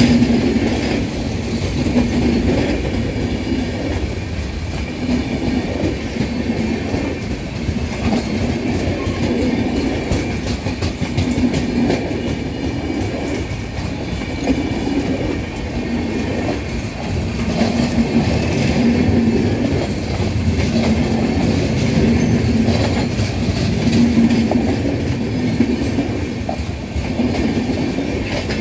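LHB passenger coaches of an Indian Railways superfast express passing close by at speed, their wheels clattering steadily and rhythmically on the rails.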